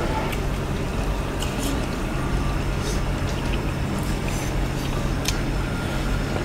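Close-miked eating: chewing and wet mouth sounds, with a few sharp clicks of chopsticks and spoons on ceramic bowls, over a steady low hum.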